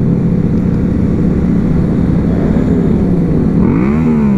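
Motorcycle engine running steadily while riding in a group of motorcycles. Its pitch dips and rises again a couple of times near the end as the throttle changes.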